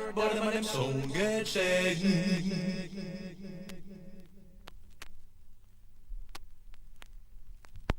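Unaccompanied voice chanting or singing, ending on a long wavering held note that fades out about four and a half seconds in. A few faint clicks follow.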